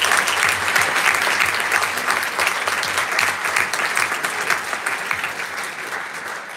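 Audience applauding, the clapping gradually dying down toward the end.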